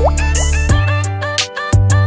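Background music with a drum beat and a deep bass line; a quick rising slide at the very start and a short drop-out of the bass about three-quarters of the way in.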